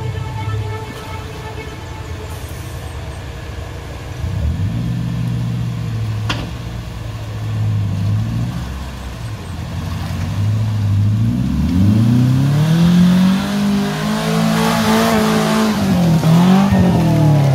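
Off-road 4x4's engine revving in repeated surges as it crawls through a rocky river, climbing to a long high rev about two-thirds of the way through, then dropping, rising again and falling away near the end.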